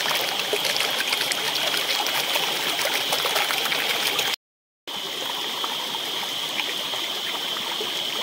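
Shallow forest stream running over rocks with a steady rush of water. A steady high-pitched drone sits above it. The sound cuts out briefly about four and a half seconds in, then resumes a little quieter.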